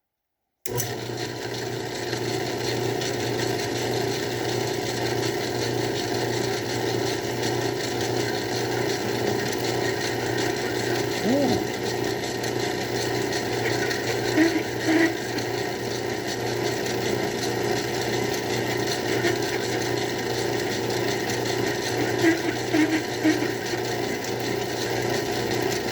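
Craftsman 109 lathe running steadily under power, its motor-driven chuck turning while a 1/2-inch drill bit bores through aluminium. The running sound starts abruptly just under a second in and holds an even pitch and level.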